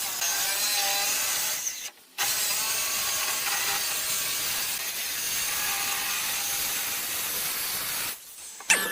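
A power tool working wood: a steady rasping noise that cuts out briefly about two seconds in and again near the end.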